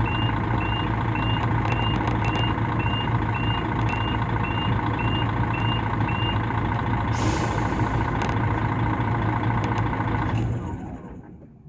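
Mercedes-Benz O500-RS bus's 354-horsepower diesel engine running steadily, heard from inside the bus. Short high beeps sound about two and a half times a second, typical of a reversing alarm, and stop about 6 seconds in. A brief hiss of released air follows about 7 seconds in, and near the end the engine is shut off and dies away.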